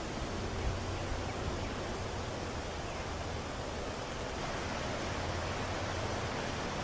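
Steady, even rushing noise with a low rumble and no distinct events.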